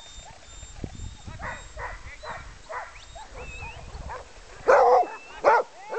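Sled dogs barking and yelping, several voices overlapping, with the loudest barks about five seconds in.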